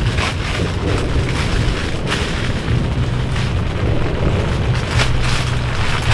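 Fire burning in a camping brazier, a steady low rumble with a few sharp crackling pops.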